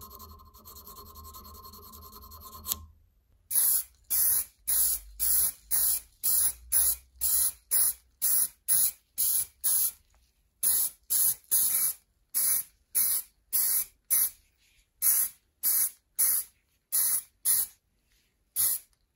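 Spray paint hissing from an aerosol can in many short bursts, two to three a second with a couple of brief pauses, as sharpener parts get a coat of paint. Before the spraying starts there are a few seconds of quieter, steady scratching on a metal part.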